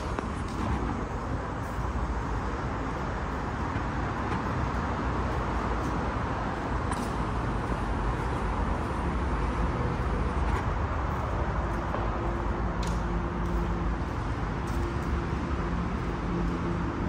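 Steady road traffic noise, with a low engine hum joining about two-thirds of the way through.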